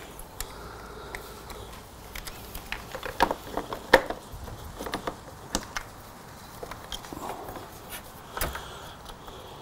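Scattered light clicks and taps of the plastic handlebar switch housing and its wiring being handled and fitted, busiest about three to four seconds in, with a sharper knock near the end.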